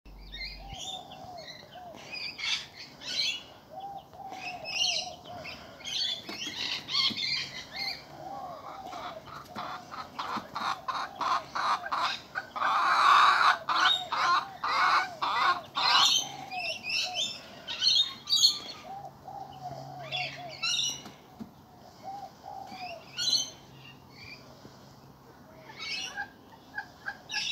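Chickens in a wire run calling: repeated clucks and short high chirps and squawks, with a louder, noisier flurry about halfway through.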